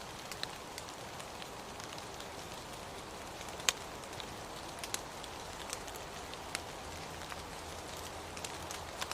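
Steady rain falling, with scattered close drops ticking sharply on a surface; one drop lands louder than the rest a little under four seconds in.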